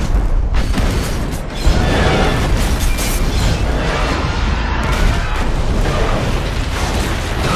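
Film sound of a commuter train blown apart by a bomb: a loud, sustained explosion and fire blast, with a sharper hit about 1.7 seconds in.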